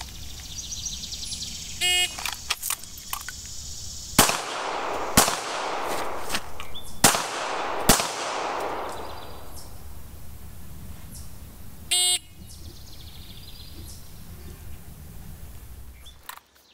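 A shot timer beeps once to start. About two seconds later a Smith & Wesson M&P9 2.0 9mm pistol fires four shots: two about a second apart, a pause of about two seconds while the pistol is shifted to the non-dominant hand, then two more. The timer beeps again about ten seconds after the first beep, marking the end of the time limit.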